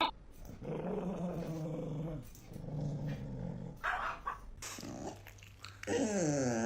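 A dog growling in low, drawn-out grumbles, then a longer wavering vocal starting near the end.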